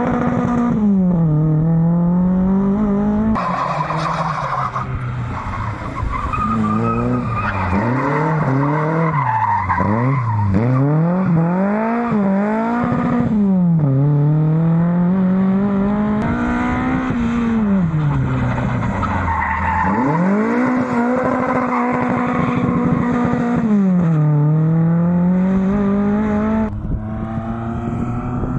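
Classic Lada sedan's four-cylinder engine revving up and dropping back again and again as the car drifts, with tyres squealing and skidding on the concrete.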